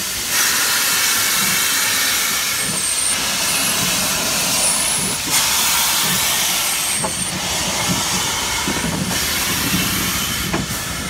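Steam hissing out of the SNCF 140 C 38, a 2-8-0 steam locomotive, venting low near its cylinders: a loud, steady hiss that swells and eases a few times.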